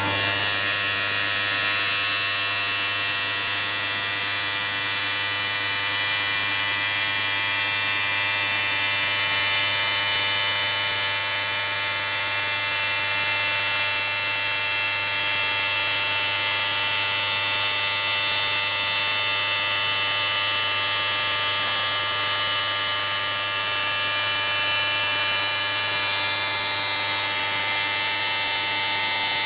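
Quartz-stone CNC router's spindle running at a steady speed: an even electric hum with a high whine over it, unchanging throughout.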